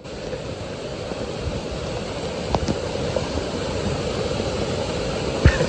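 Steady rush of water from a small waterfall pouring off a rock cliff, with a sharp click a little past halfway and a heavier thump near the end.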